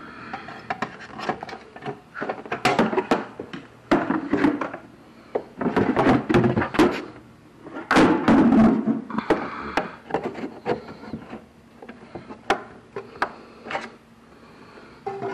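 Hand work on a golf cart: a run of knocks, clunks and sharp clicks with scraping and rubbing as parts are pulled out and handled.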